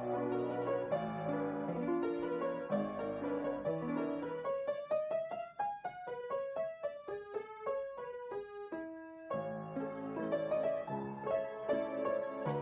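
Background piano music: low chords under a light melody, with a run of single notes in the middle that climbs and then falls before the low chords come back.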